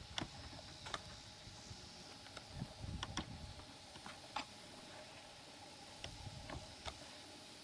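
Faint, scattered clicks and small handling knocks from adjusting the zoom and focus of the camera and optic, over low background hiss.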